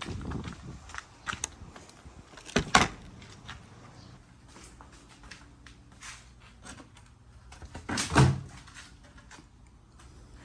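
Marbles rolling and clicking along a wooden marble-run track, with scattered light clicks and two louder wooden knocks, about three seconds in and near eight seconds, the second with a deeper thud.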